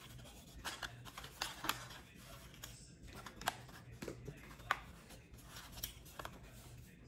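Light handling noise of a plastic camcorder body and accessories being fitted: scattered small clicks and taps at irregular intervals, with faint rubbing in between.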